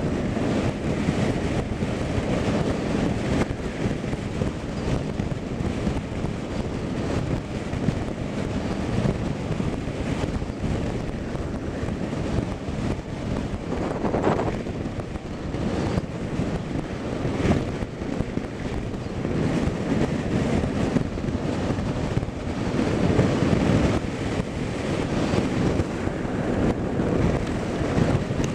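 Wind buffeting the microphone: a rough, low rumble that rises and falls in gusts.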